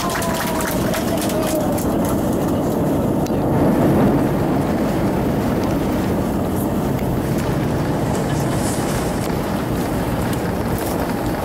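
Airbus A320 cabin noise: a steady deep rumble of the airliner in motion, with a tone gliding down in pitch at the start and a brief swell in loudness about four seconds in.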